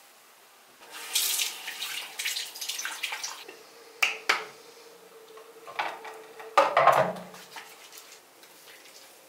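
Bathroom tap running into a sink and hands washing in the water, with two sharp clicks about four seconds in as a face-cleanser bottle is handled, and a loud splash about seven seconds in.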